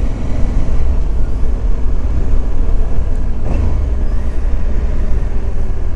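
Motorcycle riding along at moderate speed, recorded on the bike: steady engine hum under a constant low wind rumble on the microphone.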